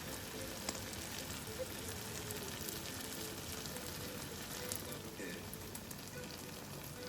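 Food sizzling in a frying pan: a steady hiss with light, irregular crackles.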